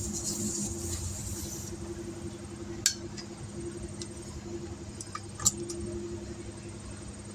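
Compressed air hissing through a tire inflator that stops a little under two seconds in, followed by a few sharp metallic clicks and clinks, over a steady low machine hum.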